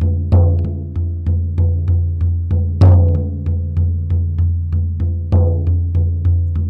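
Hand-held frame drum struck with a beater in a steady shamanic journeying beat, about three strokes a second, each with a deep ringing boom. Every couple of seconds one stroke lands harder, the hardest about three seconds in.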